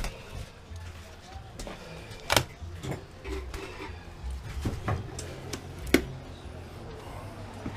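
Irregular knocks and clicks from hand work on a camper's interior trim and fittings, with two sharp knocks, about 2.4 s and 6 s in, the loudest, over a low steady hum.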